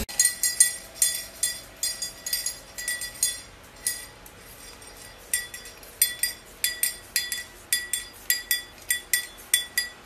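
A small metal object carried in a white cockatoo's beak clinks and jingles over and over as the bird walks, about two to three ringing clinks a second, with a short lull near the middle.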